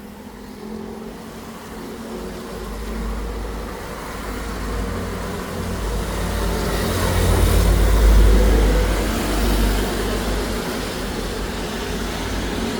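Street traffic: a motor vehicle passing close by, its low engine rumble building to its loudest about two thirds of the way through and then easing off.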